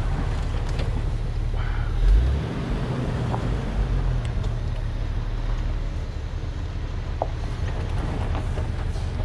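Jeep engine running steadily at crawling speed on a rough dirt trail, a low rumble with scattered light clicks and knocks. One heavy low thump about two seconds in.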